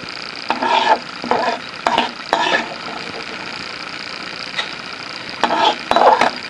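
Urad dal sizzling in hot oil in an iron kadai, fried golden brown, while a metal spatula scrapes and stirs it against the pan. The scraping comes in bunches of strokes over the first two or three seconds and again near the end, with only the steady sizzle between.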